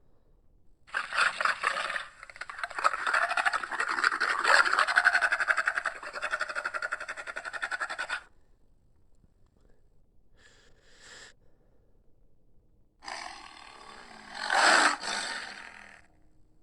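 Hyaenodon creature sound effects used as Andrewsarchus vocalizations: a short roar, then a long raspy roar of about five seconds. A brief faint call follows, then a final roar that swells to its loudest near the end.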